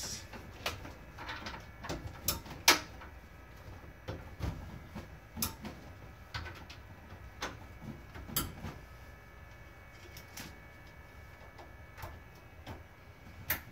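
Irregular plastic clicks and knocks of Ethernet cables being handled and plugged into a network switch inside a wall wiring panel, the sharpest click about two and a half seconds in.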